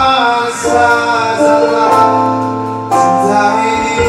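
A man singing a slow song into a microphone over instrumental accompaniment, with long held notes.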